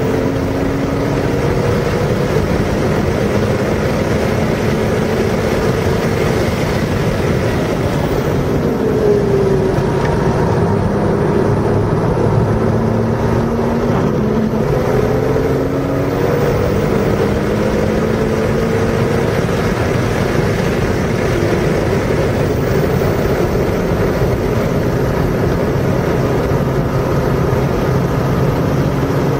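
Car engine lapping a race track at speed: its pitch climbs as it revs up through each gear and drops back at each shift, over steady road and wind noise.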